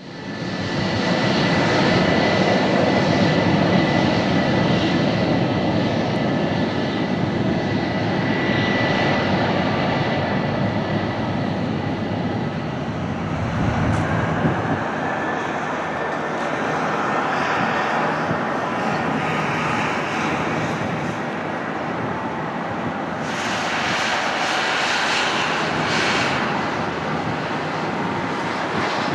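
Airbus A320 jet engines running on the runway: a steady, even rush with a thin high whine that fades out after about ten seconds.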